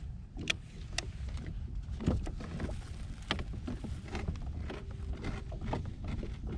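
Irregular light clicks and knocks of fishing gear being handled aboard a kayak while the rig is changed to a jig and shrimp fly, over a steady low rumble of wind on the microphone.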